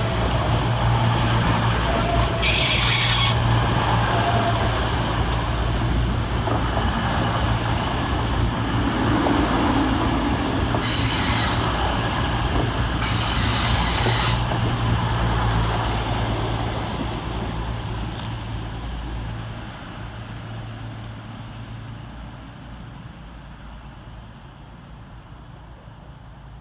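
A CrossCountry Class 220 and Class 221 Voyager pair, diesel-electric multiple units with an underfloor Cummins diesel under each car, running through with a steady engine drone and rail noise. Three brief high-pitched bursts come about two, eleven and thirteen seconds in. The drone fades away over the last ten seconds as the train moves off.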